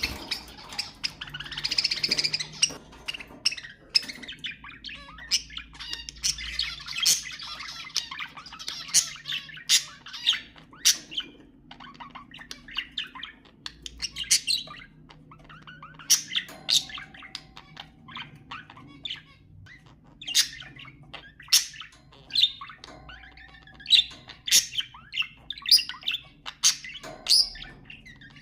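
Budgerigars chattering: a dense run of warbling chirps in the first few seconds, then scattered sharp chirps and squawks, with a few short steady whistled notes later on.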